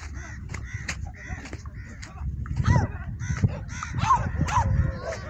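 Repeated harsh animal calls: short ones about three a second at first, then several longer calls that rise and fall in pitch, over a steady low rumble.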